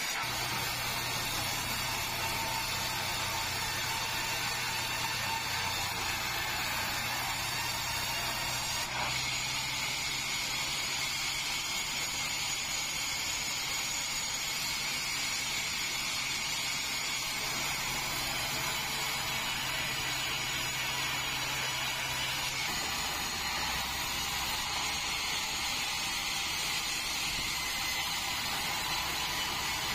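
Sawmill band saw sawing a large meranti log: a steady machine noise with a low hum under it that drops away about three-quarters of the way through.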